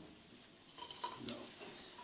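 A few faint clicks and light knocks, about a second in.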